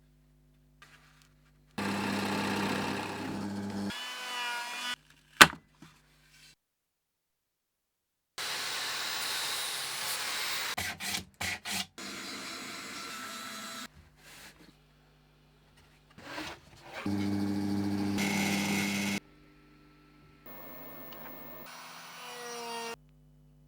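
Power tools working wood in a string of short clips, each starting and stopping abruptly, with near silence between them. One sharp knock comes about five seconds in.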